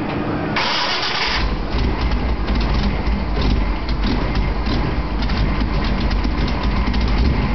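Ford Racing 514 big-block V8 firing up for the first time after installation: it catches about a second in and keeps running with a deep, steady rumble.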